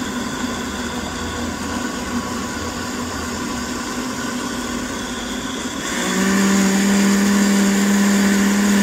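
Countertop blender with a glass jar running, blending a thick fruit and yogurt shake. About six seconds in it gets louder and settles into a strong steady hum.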